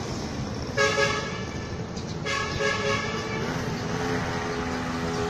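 Two short horn toots, each under a second and about a second and a half apart, over the steady running of a small grass-cutter engine.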